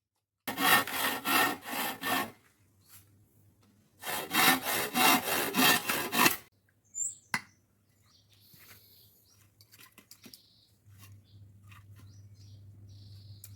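Hand saw cutting through wood in two short bursts of back-and-forth strokes, a few strokes a second, with a pause between them.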